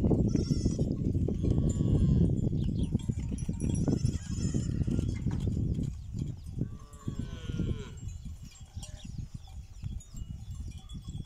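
Wind buffeting the microphone with a low, irregular rumble that eases after about six seconds. Over it come a few short calls from the grazing cattle herd, the clearest about seven seconds in.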